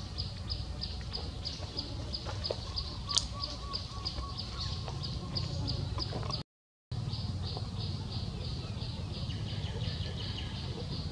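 Rhythmic high-pitched chirping, about four or five short chirps a second, over a low rumbling background. The audio cuts out for about half a second partway through.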